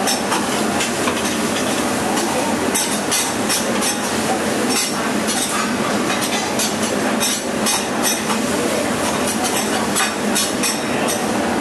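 Two metal spatulas clacking and scraping rapidly on a steel teppanyaki griddle as meat and onions are chopped and turned, over a steady sizzle of frying food.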